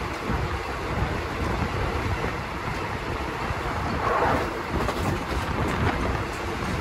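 Steady ride noise of a moving passenger train heard from on board: wheels rumbling on the rails with wind rushing past, and a brief louder swell about four seconds in.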